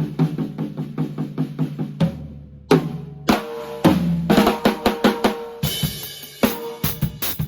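Drum kit being played: kick drum, snare and hi-hat in a fast groove, with the hi-hat sounding muffled. The playing breaks off briefly about two seconds in, then picks up again with fills and ringing cymbals.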